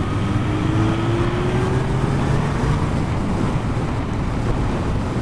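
Motorcycle riding along at road speed: heavy wind rush buffeting the action camera's microphone over the engine's drone, whose pitch climbs slowly over the first few seconds as the bike accelerates.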